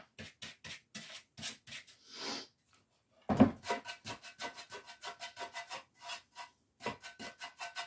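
Wax brush scrubbing antiquing wax onto a lamp in quick back-and-forth flicks: a fast run of short scratchy strokes, about four or five a second. A louder knock comes about three and a half seconds in, and then the strokes carry on.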